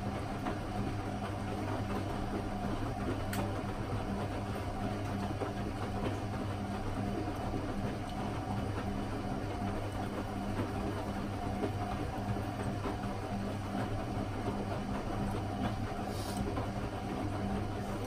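Hoover Zodiac 12 front-loading washing machine running mid-cycle: a steady motor hum as the drum turns the load, with a faint click about three seconds in.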